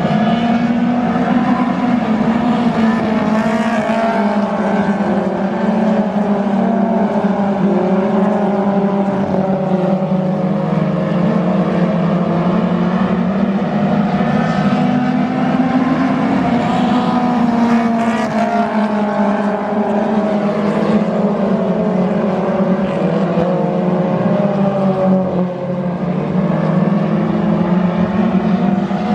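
A pack of dirt-track stock cars racing, their engines running loud and continuous, the pitch rising and falling gently as drivers lift off and get back on the throttle around the oval.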